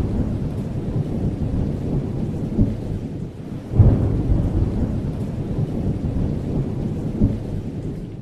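Thunder-and-rain sound effect: a deep rumble over a steady hiss, with a fresh loud boom about four seconds in, fading away near the end.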